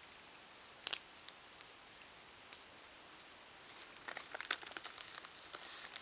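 Coarse salt sprinkled by hand over sliced pork steak, the grains ticking onto the meat and the wooden cutting board: one sharp click about a second in, then a scatter of small ticks near the end.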